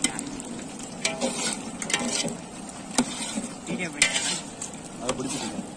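A long steel ladle stirring chicken pieces in a large aluminium pot, knocking and scraping against the pot about once a second while the chicken sizzles in its masala.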